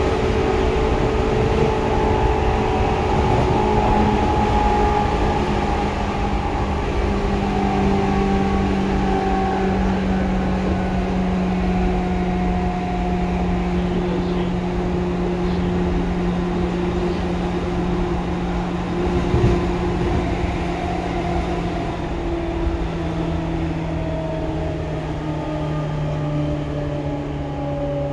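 Seibu 2000 series electric train heard from inside the car: motor and gear whine with rail rumble, the whine falling steadily in pitch as the train slows. A single short knock about two-thirds of the way through.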